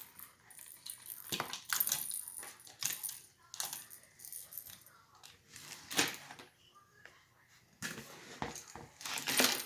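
Small plastic toys and packaging being handled: an irregular run of rustles, clicks and light clatters, with a sharper knock about six seconds in.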